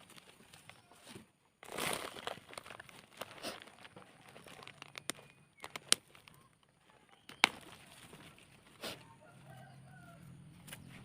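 Rustling and scattered sharp clicks of turmeric being harvested by hand from a plastic polybag, with a longer rustle about two seconds in and two loud clicks later on. Faint short bird calls near the end.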